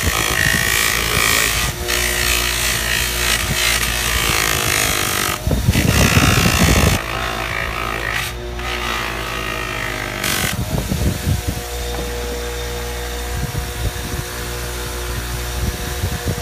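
Drake honing machine's electric motor running steadily while a bar of white compound is pressed against its spinning cloth wheel, giving a rough rubbing noise over the motor for the first seven seconds or so. After that the motor runs on alone with a steady hum and a faint whine.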